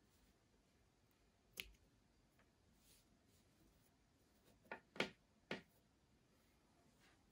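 Near silence broken by a few soft clicks and taps from handling the crochet work and tools on a tabletop: one about a second and a half in, then three close together around five seconds in.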